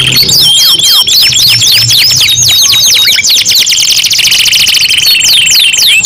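Domestic canaries singing: high-pitched song of fast, repeated sweeping notes and rapid trills, settling into a steady rolling trill in the second half.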